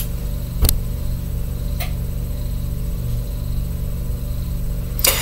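Steady low hum with three brief clicks, the clearest about half a second in and fainter ones about two seconds in and near the end, from tarot cards being handled.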